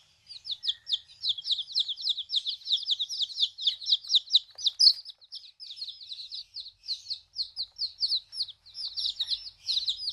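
Baby chicks peeping: many rapid, high, downward-sliding cheeps, several a second and overlapping, with a few brief pauses.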